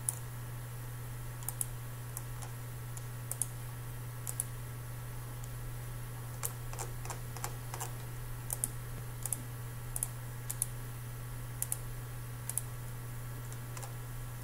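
Scattered sharp clicks of a computer mouse and keyboard, several in quick pairs and a denser run about halfway through, over a steady low electrical hum.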